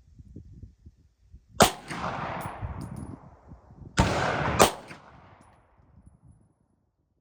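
Three 9mm pistol shots from a Walther P1, the first about a second and a half in and the other two close together near four and a half seconds, each followed by a long echo that trails off.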